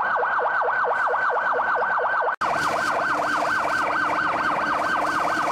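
Emergency vehicle siren in a fast yelp, its pitch sweeping quickly up and down about six or seven times a second, with a momentary break about two and a half seconds in.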